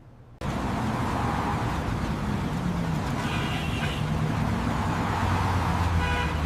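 City street traffic: a dense din of running engines, with car horns honking briefly about three seconds in and again near the end.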